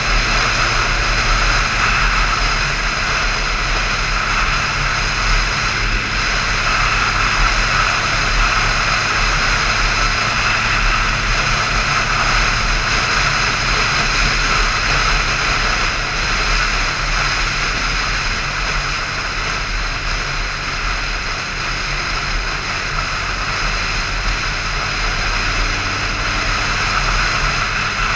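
Motorcycle cruising at a steady highway speed: a constant rush of wind over the microphone with the engine's steady low drone underneath.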